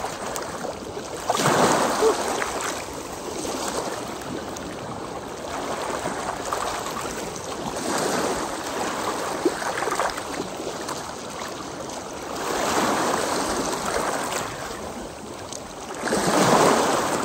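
Small sea waves washing in over wet pebbles at the water's edge, swelling and falling back four times.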